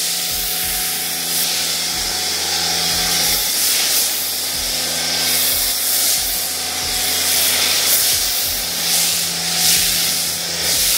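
Foam cannon on a pressure washer spraying thick snow foam onto a car's panels: a steady hiss of spray over the low hum of the running pressure washer.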